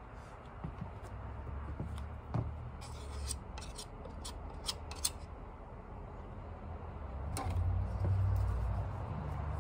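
A handful of short, sharp clicks and scrapes of small objects being handled, over a steady low hum, with a louder low rumble swelling in the second half.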